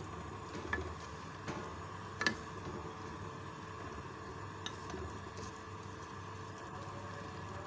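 Chicken and vegetables simmering in liquid in a pot, bubbling softly over a steady hum, with a few light clicks, the loudest a little after two seconds in.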